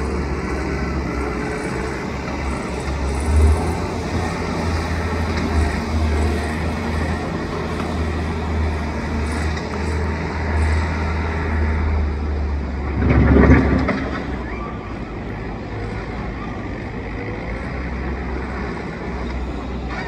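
Gehl skid-steer loader's engine running steadily with a low rumble, with a louder surge about two-thirds of the way through as it works under load.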